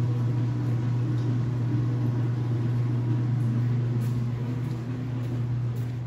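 Steady low machine hum in a small laundry room, fading near the end.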